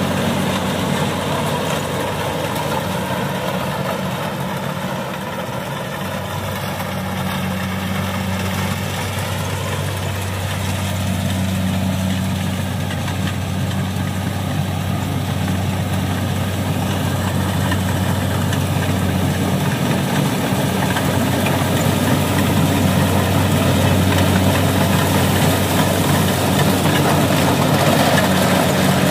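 Kubota DC70 rice combine harvester running steadily as it cuts and threshes, its diesel engine humming under the clatter of the machinery. It grows louder as the machine approaches.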